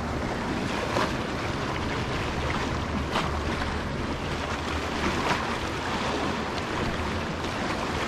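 Surf washing and breaking against the rocks of a jetty, with wind buffeting the microphone. A few brief sharper splashes come about a second in, around three seconds and just past five seconds.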